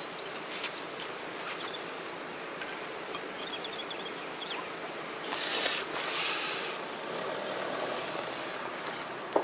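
Steady outdoor background noise with light handling sounds as short pieces of firewood are moved in around a burning firelighter: a louder rustle a little past halfway and a sharp knock right at the end.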